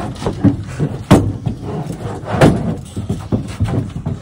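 Irregular knocks and thumps in a pickup truck bed under a truck cap as people shift about and a folding camp chair is handled. Two knocks stand out, about a second in and about halfway through.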